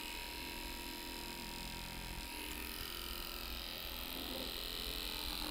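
Faint steady room tone: a low hum and hiss with a thin, steady high tone running through it.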